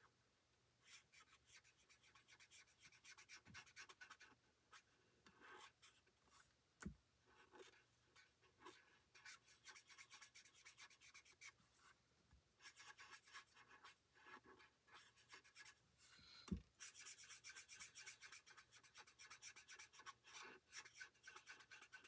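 Faint scratching and rubbing of an alcohol marker's tip stroked back and forth over cardstock, blending colour into stamped flowers, with a couple of light knocks.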